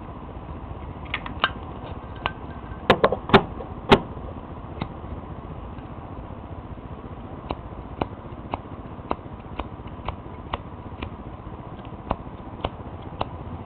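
Metal clicks from a Zippo lighter being handled and struck without lighting: a quick cluster of four or five loud clicks about three seconds in, then a run of fainter, evenly spaced clicks about two a second in the second half, over a steady background hiss. The lighter isn't catching; the wick isn't soaked with fluid.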